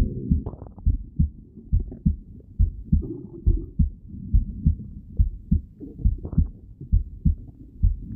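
Heartbeat heard through a stethoscope: a steady rhythm of low thumps, with a few short higher sounds over it.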